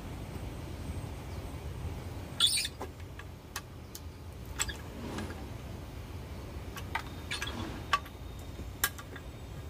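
Hand-lever metal cracking tool splitting pangi (kepayang) seed shells: a series of short, sharp cracks and clicks of shell and metal, the loudest about two and a half seconds in, over a low steady rumble.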